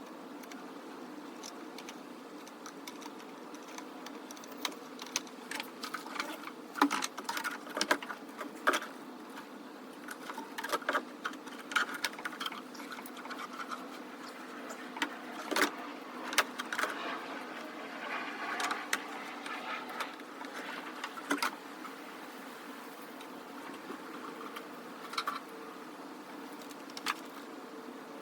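Scattered clicks, knocks and rattles of plastic and metal parts being worked loose by hand on a car's air intake, over a steady low hum.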